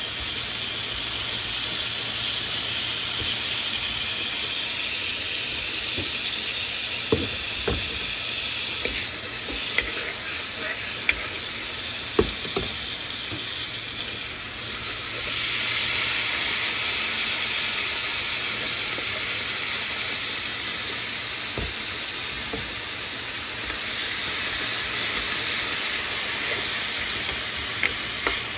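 Melted margarine sizzling in a hot nonstick frying pan, with a few sharp clicks of a spatula against the pan. About halfway through, canned sweet corn kernels go into the pan and the sizzling grows louder, and near the end the spatula stirs them.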